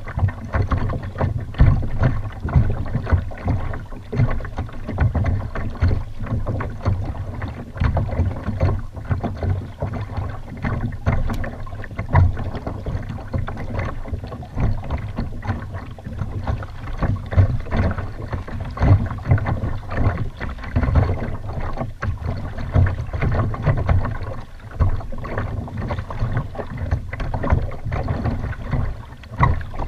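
Water slapping and sloshing against a Malibu kayak's hull, with wind buffeting the microphone: a continuous uneven low rumble broken by frequent irregular knocks.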